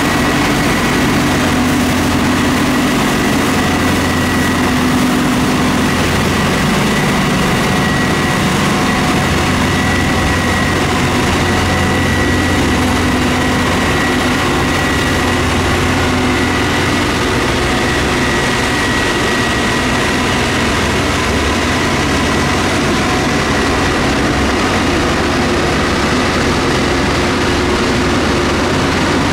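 Subway snow-thrower work train passing slowly, its diesel engines and rotating snow blower running steadily, with a thin high whine over a constant heavy hum and the rush of thrown snow.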